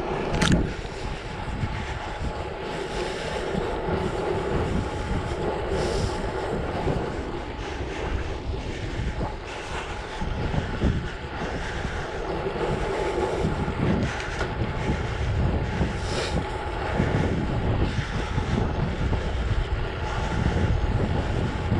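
Wind buffeting a bike-mounted camera's microphone over the rolling noise of a bicycle's tyres on an asphalt road shoulder, with a short click about half a second in.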